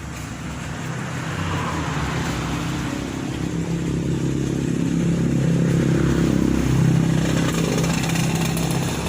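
A small engine running with a steady hum, growing louder to a peak about seven seconds in and easing off near the end.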